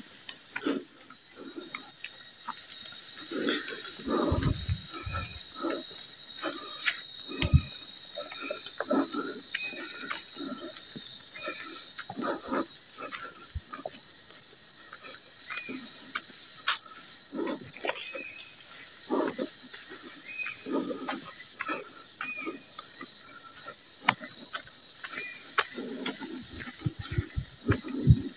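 A steady, shrill drone of insects fills the forest throughout. Beneath it come irregular low thumps and rustles of footsteps along a dirt path, with small chirps scattered through.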